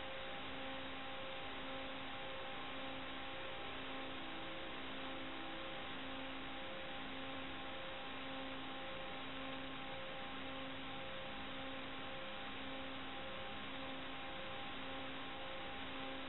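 Radio receiver static: a steady hiss that stops above about 4 kHz, with faint steady tones under it and a low tone pulsing on and off about once a second.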